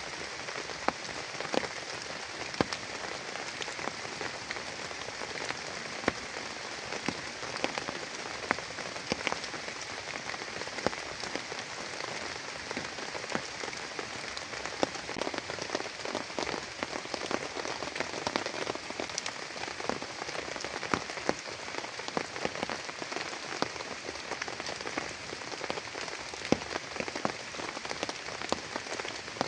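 Heavy rain falling steadily, with many sharp individual drops pattering on a surface close by.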